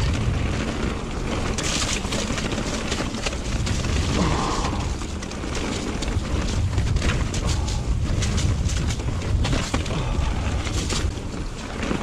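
Mountain bike riding down a rocky trail: a steady run of knocks and rattles as the wheels hit rocks, under a constant low rumble of wind on the chest-mounted camera's microphone.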